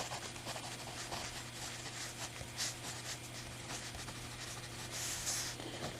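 Parker mechanical pencil with 0.9 mm lead writing on paper: a run of light, irregular scratchy strokes.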